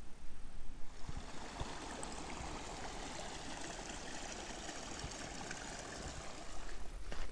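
Snowmelt water running over the trail: a steady stream rush that comes in about a second in and holds level.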